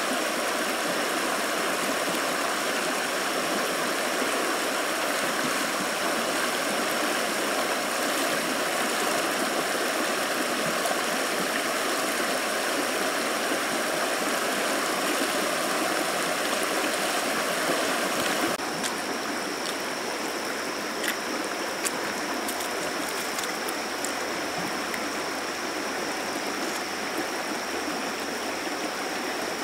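Shallow river rushing steadily over rapids and stones. About two-thirds of the way in, the rush drops abruptly to a softer flow, with a few light clicks.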